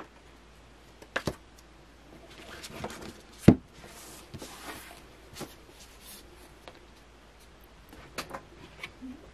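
Tarot cards being handled and laid down on a cloth-covered table: soft rustling and sliding, with a few sharp taps. The sharpest tap comes about three and a half seconds in, and a few lighter clicks come near the end.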